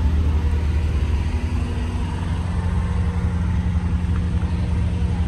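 A vehicle engine running steadily with a deep, even rumble.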